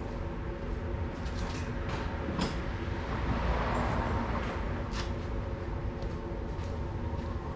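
A few sharp metal clicks of a socket being fitted over a stuck pin, over a steady low hum.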